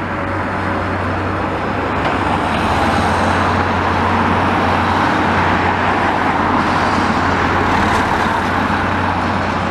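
Road traffic passing close by: tyre and engine noise that swells over several seconds and eases again, over a steady low hum.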